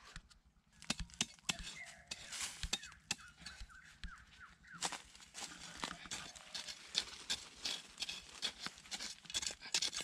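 Machete blade scraping and knocking into dry soil and leaf litter, a fast, irregular run of scrapes and knocks. A string of short falling chirps sounds about two to four seconds in.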